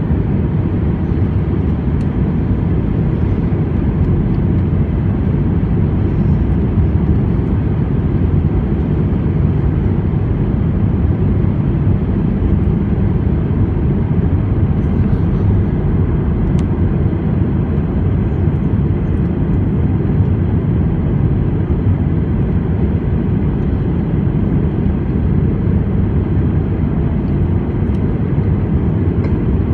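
Steady engine and airflow noise inside the cabin of an Airbus A319 airliner, even and unbroken.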